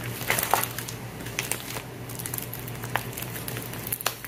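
Crinkling and rustling of handled plastic packaging, with scattered light clicks and knocks, over a faint steady low hum.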